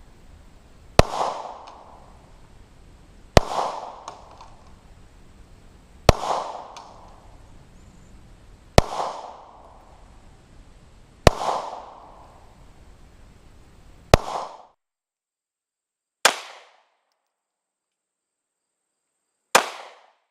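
Glock 19 Gen 5 9mm pistol fired in slow, single shots, eight sharp reports about two to three seconds apart, each with a short echo.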